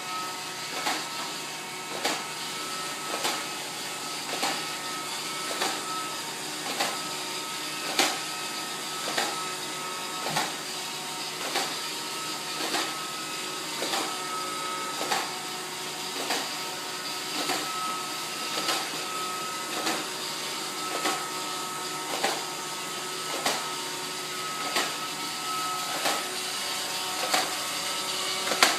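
iRobot Roomba 571 robot vacuum running, its motors giving a steady whine with a sharp click repeating about every 1.2 seconds: an unwanted noise from the machine.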